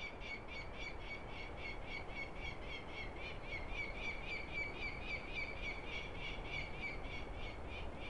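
Peregrine falcon calling: an unbroken, rapid, even series of harsh, pitched notes, about four to five a second.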